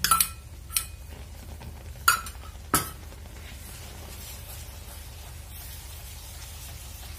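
A metal spatula clinks sharply against a stainless steel pan four times in the first three seconds, each strike ringing briefly. It then settles into quiet, steady scraping as a moist gram-flour (besan) mixture is stirred in the pan.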